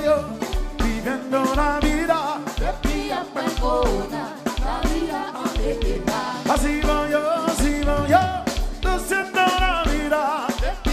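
Live konpa band playing: drum kit, electric bass and guitars keep a steady beat of about two a second under a sung vocal melody.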